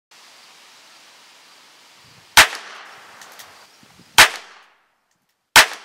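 Three shots from a Harrington & Richardson Model 622 .22 rimfire revolver, a little under two seconds and then about a second and a half apart, each a sharp crack with a short ringing tail.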